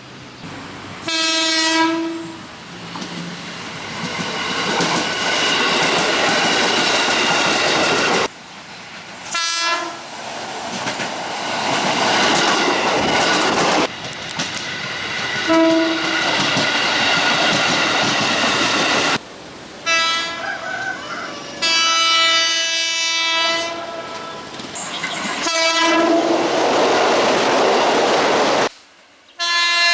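KRL Commuter Line electric trains sounding the S.35 horn signal, a greeting from the driver to trackside railfans: about six short horn notes, each a single steady note, one of them held for about three seconds. Between the horns, the trains rush past with clattering wheels.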